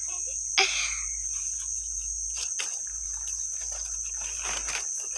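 Steady high insect chorus, with a few faint clicks and knocks and a low rumble underneath.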